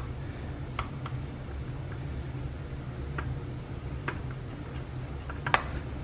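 Faint scattered clicks and squishes of corn cobs and food being pressed into a disposable aluminium foil pan, with the sharpest click about five and a half seconds in, over a steady low hum.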